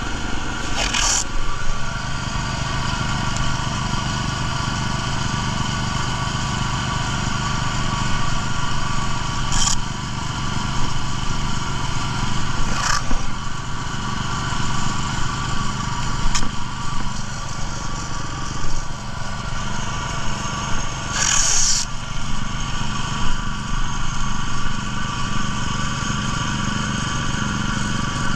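Small gasoline engine of a line-striping machine running steadily at idle. A few short papery rustles come over it as masking paper is handled and pressed down.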